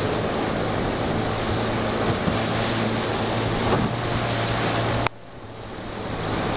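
Motor canoe running through river rapids: a steady low engine drone under loud rushing water and wind. About five seconds in there is a sharp click, after which the whole sound drops suddenly and builds back up over a second or so.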